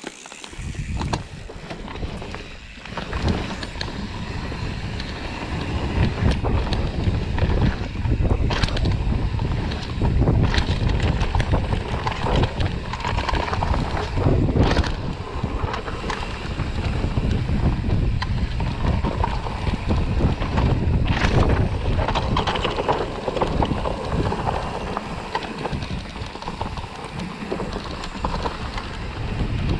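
Wind noise on an action camera's microphone as a mountain bike rides down a rough forest dirt trail, with the steady rumble and rattle of the bike over the ground. Now and then there is a sharp knock from a bump.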